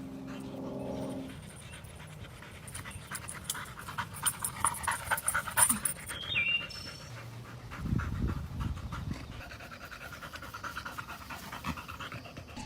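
A dog panting rapidly, quick short breaths in a steady run, after a brief steady hum in the first second.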